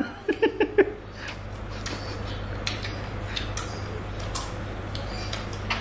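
A few short huffing vocal puffs in the first second, a reaction to the sourness of unripe mango, then chewing of crisp raw green mango with scattered faint crunchy clicks over a steady low hum.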